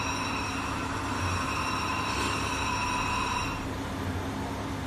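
Automatic clamp punching and bending machine running, with a steady high whine over a low hum; the whine cuts out about three and a half seconds in, leaving the even running noise.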